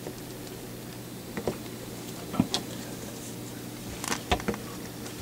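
A cat moving about behind a refrigerator: a few light knocks and scuffs, about a second and a half in, at two and a half seconds, and a cluster near four seconds, over a steady low hum.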